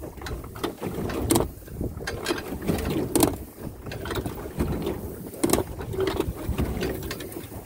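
Choppy water slapping and knocking against an aluminium boat hull: irregular splashy knocks over a low rumble, the loudest about a second and a half, three, and five and a half seconds in.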